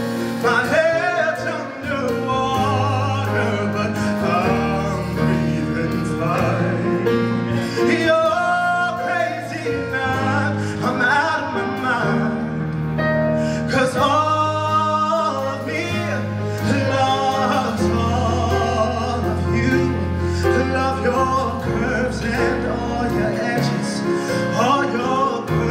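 Man singing a slow pop ballad live into a microphone, with a band accompanying and a sustained bass line underneath.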